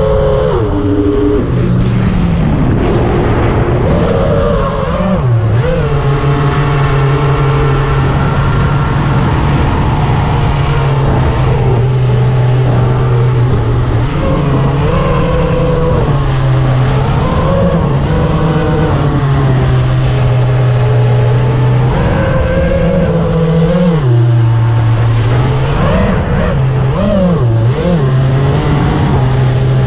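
FPV quadcopter's motors and propellers running loudly, heard from the onboard GoPro, the pitch swooping up and down with throttle changes between steadier stretches.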